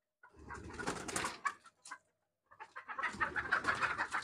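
Desi chickens flapping and scrambling about with clucking while a rooster is chased down by hand to be caught. There are two bouts of commotion, the second starting about two and a half seconds in and carrying on.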